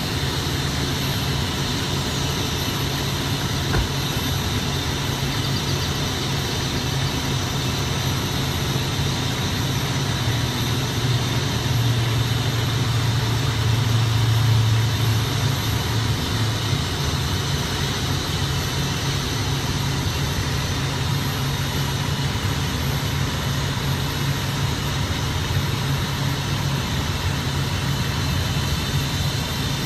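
Heavy vehicle engine idling steadily, swelling a little louder about halfway through.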